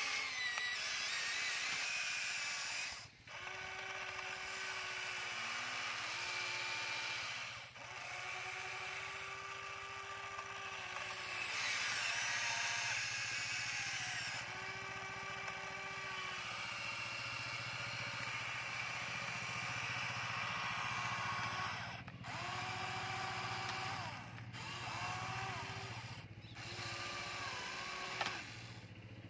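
Electric motors of a remote-control toy excavator whining as the boom, arm and bucket work, in runs of a few seconds that stop and restart, the pitch sagging as each movement ends.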